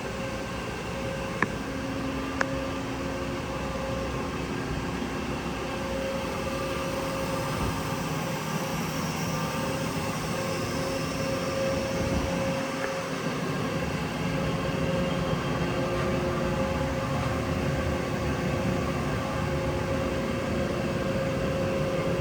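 Mori Seiki NL2500Y CNC lathe running under power: a steady mechanical hum with several held tones that grows slightly louder. Two sharp clicks come in the first few seconds.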